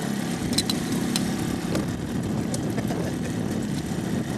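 Boat motor idling steadily, with a few sharp clicks over it.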